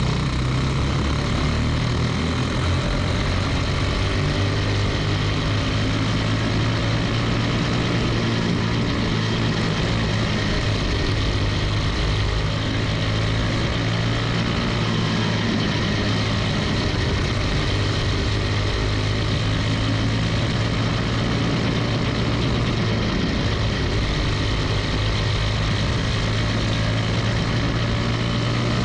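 Briggs & Stratton Animal single-cylinder four-stroke kart engine running flat out, heard from the driver's seat. The engine note stays nearly constant in pitch and level throughout, with other karts' engines mixed in.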